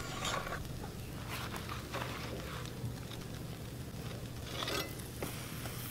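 Salmon sizzling on a steel mesh grill grate over an open fire, with a metal spatula scraping and clinking on the grate a few times, the loudest scrape about four and a half seconds in.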